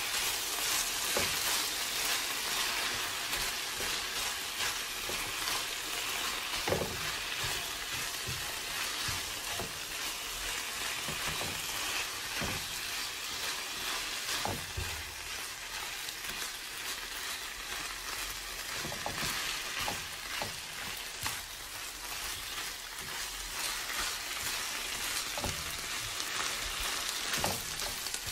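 Spicy chicken, rice cakes and vegetables sizzling in a nonstick frying pan as they are stir-fried with a silicone spatula. A steady hiss runs throughout, with a few short knocks of the spatula against the pan.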